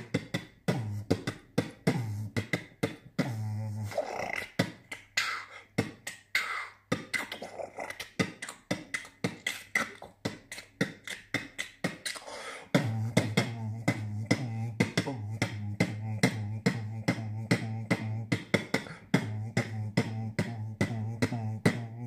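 Beatboxing: a fast, steady beat of mouth-made kick, snare and hi-hat clicks over a hummed low bass note. For several seconds in the middle the bass note stops and pitched vocal sounds ride over the beat, then the hum comes back under the clicks.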